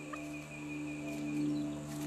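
Background music: a steady low drone, with a thin high tone held for about the first second and a half.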